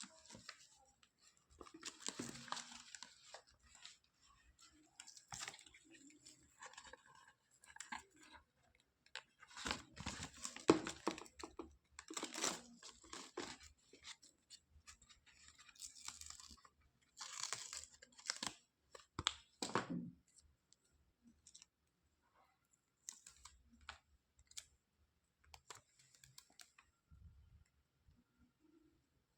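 Plastic toy pieces and packaging being handled: irregular rustling, crinkling and light clicking in several louder spells, with quiet stretches between them.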